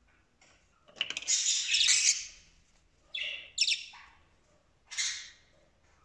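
Budgerigar giving harsh chirps and squawks: one loud, drawn-out call about a second in, then three shorter calls.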